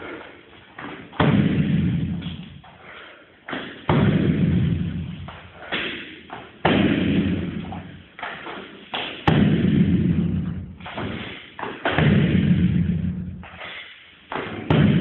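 Strikes landing on a padded shield: six heavy thuds at an even pace, each dying away in a long echo. A lighter knock comes just before some of them.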